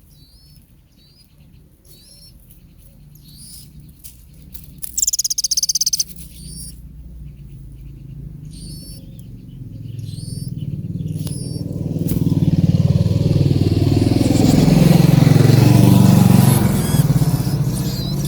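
Small bird chirping in short high calls, with a loud rapid run of chirps about five seconds in. From about ten seconds a passing motor vehicle's engine rumble builds, loudest near the end, then eases.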